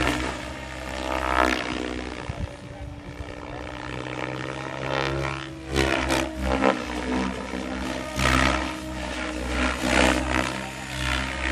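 Radio-controlled model airplane's engine droning as the plane flies passes overhead. The sound swells and fades several times, loudest around the middle and near the end.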